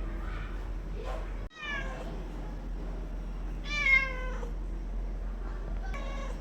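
Domestic cat meowing three times, each call falling in pitch: a short meow about a second and a half in, a longer and louder one around four seconds in, and a fainter one near the end, over a steady low hum.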